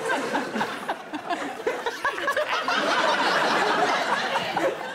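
Studio audience laughing, swelling to a peak about three to four seconds in, then dying down near the end.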